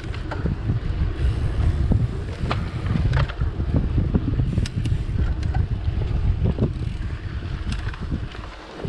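Wind buffeting the microphone over the rumble of mountain bike tyres on a dirt trail, with frequent short clicks and rattles from the bike over bumps.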